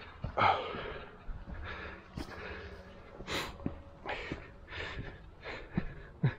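A man breathing hard in irregular breaths as he walks, with a few short knocks.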